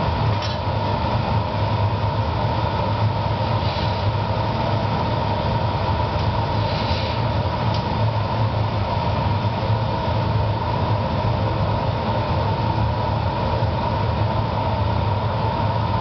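Gas-fired furnace, glory hole and blowers of a glassblowing studio running steadily: a continuous low hum with a constant higher tone over it, with a few faint clinks.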